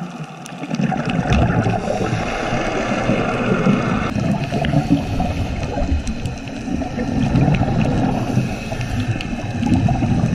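Scuba regulator exhaust bubbles gurgling and rushing underwater as a diver breathes out, starting about half a second in and continuing throughout.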